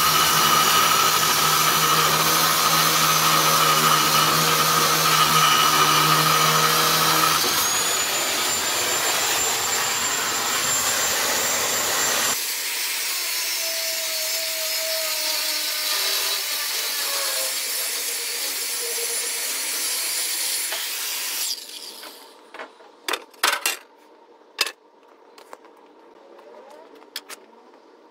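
Electric demolition saw with an abrasive cut-off wheel running and grinding through scrap steel; its whine rises in pitch about a third of the way in. Near the end the saw stops, and a few sharp metallic knocks follow.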